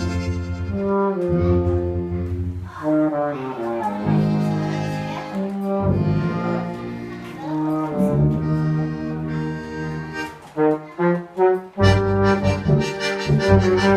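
Brass instruments playing music together: held notes in chords over a low bass line, changing every second or so. Near the end the notes turn short and detached.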